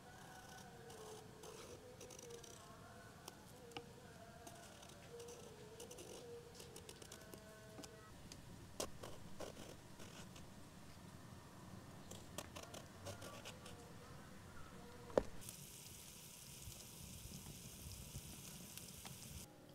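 Faint scrapes and clicks of a small knife peeling strips of skin from an eggplant, with faint wavering tones in the background. About 15 seconds in there is a sharp click, then onions sizzle steadily in hot oil in a pot until just before the end.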